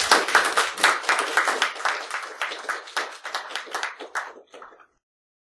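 Audience applauding: dense clapping that thins out and fades, ending about five seconds in.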